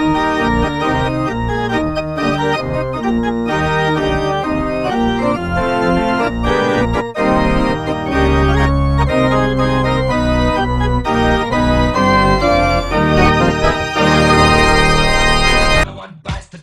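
Hockey goal song played on an organ: a quick tune of short changing notes over a bass line, cutting off suddenly near the end.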